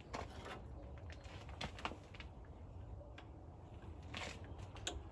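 Faint, scattered metal clicks and a short scrape as a drum-brake shoe return spring is worked into place on a truck's brake shoes, about five separate knocks over a few seconds against a low steady hum.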